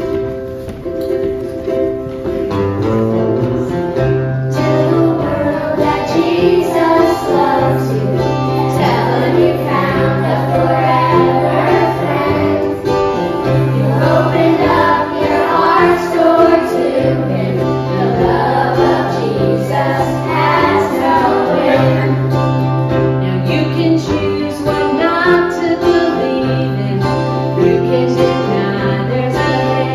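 Children's choir singing together with a woman's voice, accompanied by acoustic guitar and held low bass notes.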